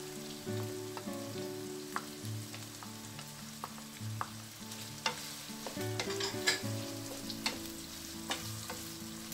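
Wooden spatula stirring in a nonstick wok of simmering ground pork, corn and diced carrot, with scattered sharp clicks from the spatula against the pan and bowl over a soft sizzle.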